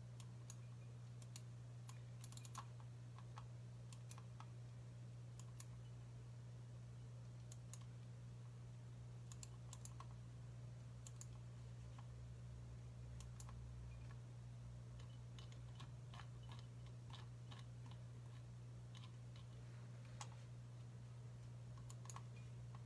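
Faint, irregular clicks of typing on a computer keyboard, over a steady low electrical hum.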